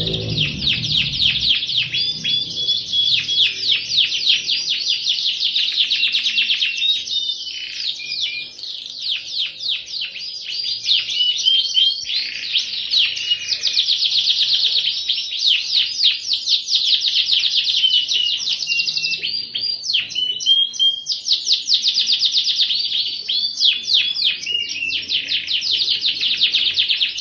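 Canary singing continuously in long, fast rolling trills and chirps, with a few short whistled notes mixed in and brief breaks about 8, 12 and 20 seconds in.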